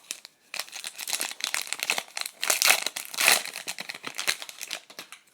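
Crinkling and rustling of a foil trading-card pack wrapper being handled, an irregular crackle.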